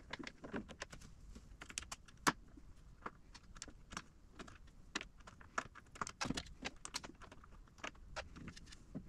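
Light, irregular metallic clicks and taps of a hex wrench working a small screw and being re-seated on it, as the transport screws that lock a 3D printer's bed are backed out.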